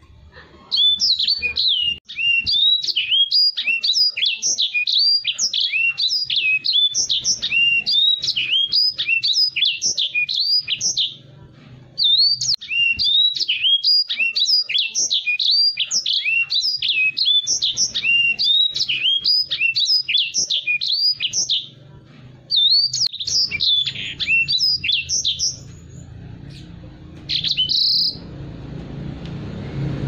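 Caged edel sanger singing a fast, continuous twittering song of quick whistled notes sweeping up and down. The song comes in long runs broken by a few short pauses.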